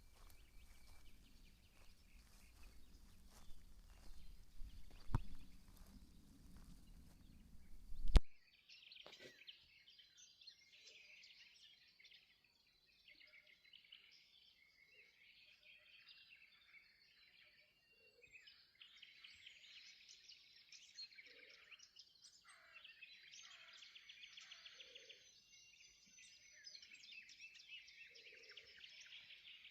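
Steady outdoor noise with a few sharp knocks, the loudest one just before the sound cuts off about eight seconds in. After the cut, wild songbirds sing and chirp in a dense chorus of trills, with now and then a short low call.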